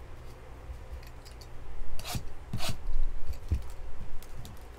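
Plastic shrink wrap being torn and rubbed off a sealed box of trading cards by hand: several short scratchy rips and rubs, the loudest about two seconds in.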